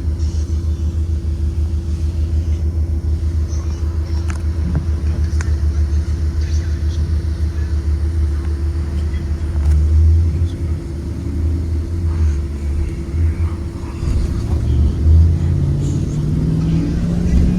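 A 2023 Blue Bird Vision school bus's Ford 7.3L gasoline V8 heard from inside the bus, running with a steady low drone. About fourteen seconds in the engine note rises as the bus accelerates.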